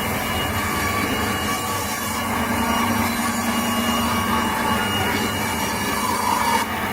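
CNC band saw running steadily, a continuous machine noise with faint steady tones.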